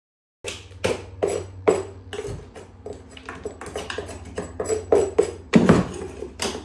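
Hand tools knocking and chipping at an old kitchen floor as the tile is torn up: a run of sharp, irregular knocks of uneven loudness, about two to three a second, over a steady low hum.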